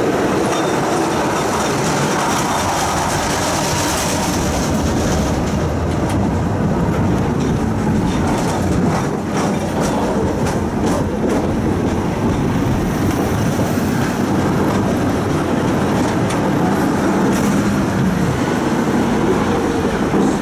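Tram running along its rails, heard from inside the car: a steady rumble of wheels on track, with a few sharp clicks of the wheels about halfway through.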